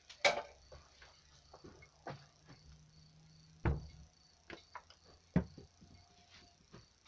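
Hands handling glass jars and material on a wooden bench: scattered small knocks, clinks and rustles, with three louder knocks about a third of a second in, just before four seconds and around five and a half seconds.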